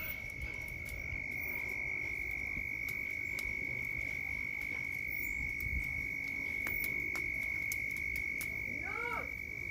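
A nighttime frog chorus: one steady, high, unbroken trill, with scattered faint clicks. Near the end a short warbling call rises and falls a few times.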